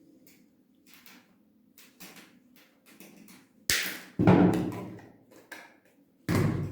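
Handling noise from wiring an orchid to its mount: light clicks and rustles, then a few sudden louder knocks, the loudest about four seconds in and another near the end.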